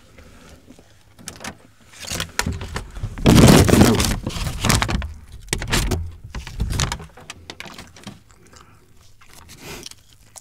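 Paper takeout bag rustling and crinkling as a gloved hand rummages inside it for a ketchup packet, loudest a few seconds in.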